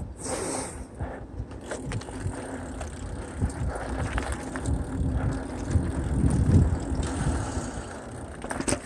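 Mountain bike rolling over a dirt trail: a low tyre rumble with the bike rattling and knocking over bumps.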